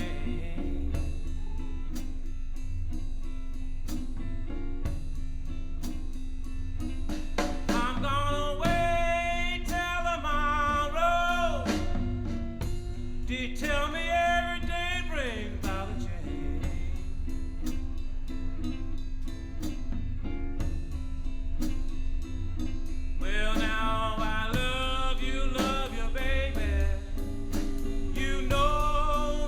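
A recorded blues song with guitar, bass and drums. A singer's long, sliding vocal phrases come in over the band several times.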